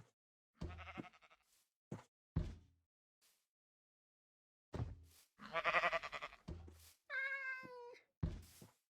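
A series of dull thumps and knocks, and about seven seconds in one drawn-out pitched call, falling slightly and lasting just under a second.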